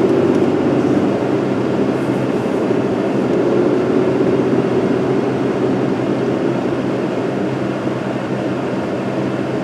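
Steady drone of an idling vehicle engine, a low even hum with a slightly wavering higher tone above it.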